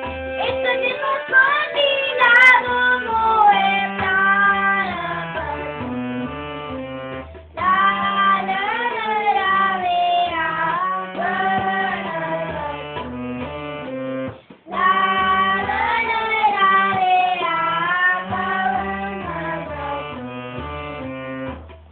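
A child singing a devotional kirtan melody to his own harmonium accompaniment. Sung phrases come near the start, about seven seconds in and about fifteen seconds in, and the harmonium's held, stepping notes carry on alone between them.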